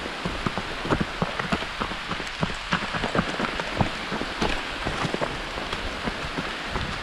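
Rain falling, with many close raindrops ticking irregularly over an even hiss.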